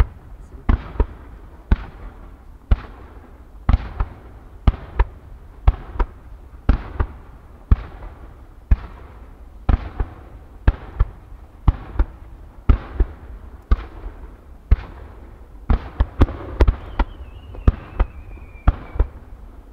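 Fireworks firing in a rapid, regular string of sharp reports, about one or two a second, each followed by a short echo, as low fan-shaped volleys of small gold stars go up. A faint, slightly falling whistle sounds among the reports near the end.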